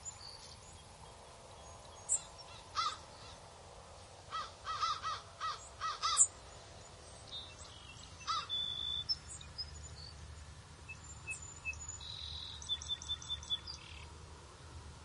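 Birds calling: short runs of harsh caws, with a few higher chirps and twitters in between.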